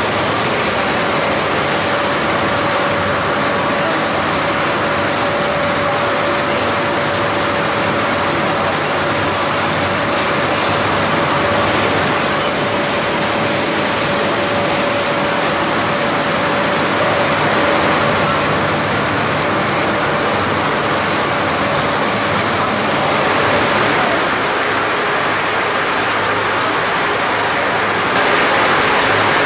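Steady rushing roar of Niagara's Horseshoe Falls, with the tour boat's engine humming a constant tone underneath.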